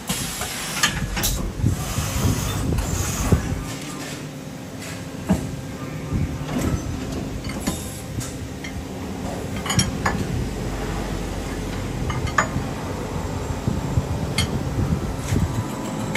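Steady hum of a CNC machining center, with scattered sharp metallic clinks and clicks as a socket wrench is handled around the steel clamp holding the workpiece.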